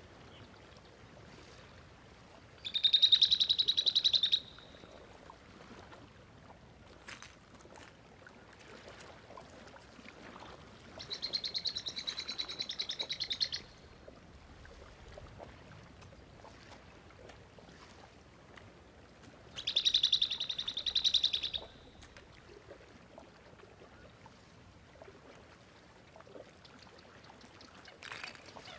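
A wild animal's high, rapidly pulsed trilling call, heard three times, each lasting about two seconds, with faint scattered clicks in between.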